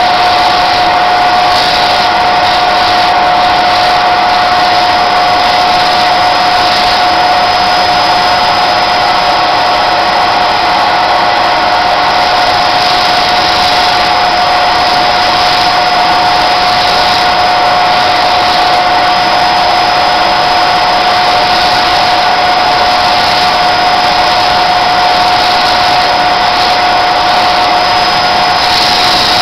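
Electric motor spinning a sanding disc used for grinding bone, running steadily with a constant whine over a loud even noise.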